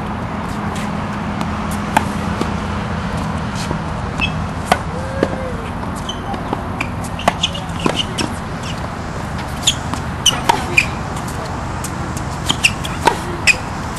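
Tennis balls being hit with racquets and bouncing on a hard court: sharp pops every second or so, several in quick succession in the second half, over a steady background hum.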